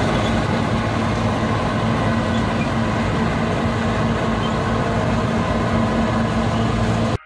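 Bizon Super combine harvester working in the field: its engine and threshing machinery run with a loud, steady mechanical noise and a low, even hum. The sound cuts off suddenly near the end.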